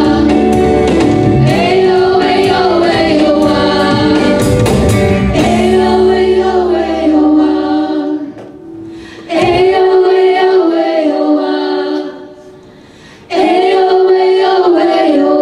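Live worship band playing a slow worship song: a group of male and female voices singing together over electric and acoustic guitars. About halfway through the instruments drop out and the voices carry on unaccompanied in long held phrases with short pauses between them.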